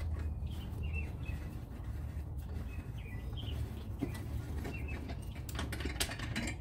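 Birds chirping in the background over a steady low rumble, with scattered clicks and a cluster of small metal clicks near the end as the front belt guide bolt under a lawn mower deck is loosened with a ratchet and removed by hand.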